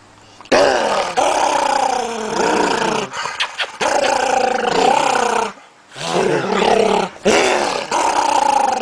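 A dog growling in four long, wavering bouts that rise and fall in pitch, with short breaks between them. It is a grumbling growl made while the dog is hugged and bares its teeth.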